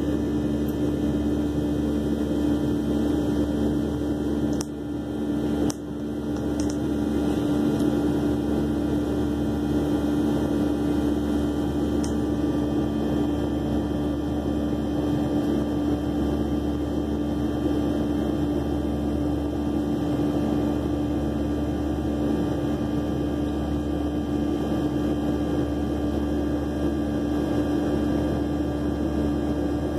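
Cabin noise of a Boeing 737 in its climb after takeoff: a steady jet-engine drone with a strong low hum, heard inside the cabin. A brief click and dip comes about five seconds in.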